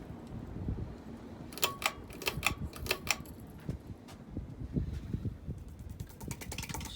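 A Hampton Bay Redington IV ceiling fan running with a low, steady hum. Over it comes a quick cluster of sharp clicks about two seconds in, and near the end a fast run of small ticks.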